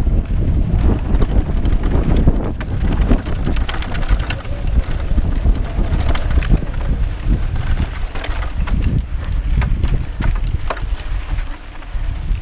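Wind buffeting a bike-mounted action camera's microphone over the rumble of mountain bike tyres on a dry dirt singletrack, with frequent clicks and rattles from the bike as it rides over the bumps.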